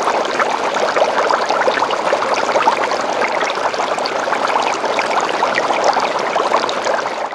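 Water running and trickling steadily, with many fine splashes.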